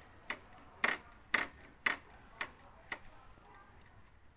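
Motorcycle front brake lever being pumped by hand, clicking six times, about two a second, pushing the caliper pistons out with the pads removed.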